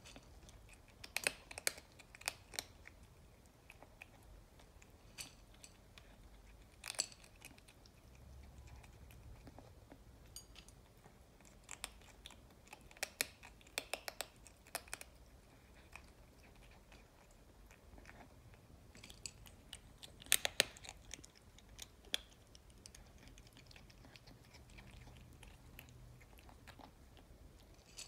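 Tabby kitten crunching dry kibble, the sharp crunches coming in short clusters with quieter pauses between.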